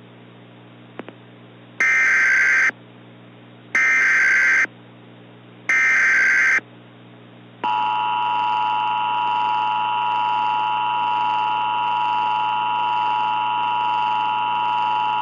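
Three raspy digital data bursts of the Emergency Alert System header, each about a second long and roughly two seconds apart. They are followed by the EAS two-tone attention signal, which starts about halfway through and holds steady. Together they mark the start of an emergency alert broadcast.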